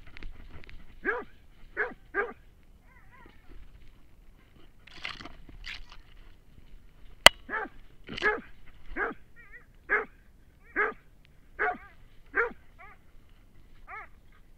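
Hunting dog barking over and over, the barks irregular at first, then coming steadily about once a second, with faint whining between them. A single sharp knock about seven seconds in.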